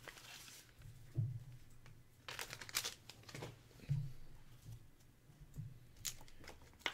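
Baseball cards from an opened 1984 Donruss pack being handled: a few short papery rustles and crinkles as the cards are sorted in the hands, the longest about halfway through, and a card is set down on the desk.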